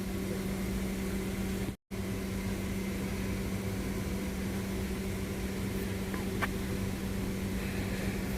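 A steady mechanical hum with a low, even pitch, which cuts out completely for a moment about two seconds in. There is a faint click at about six and a half seconds.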